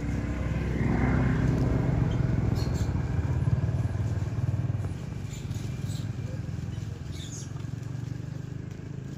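A motor vehicle's engine, most likely a passing motorcycle, running with a low hum. It grows louder about a second in and eases off after about five seconds.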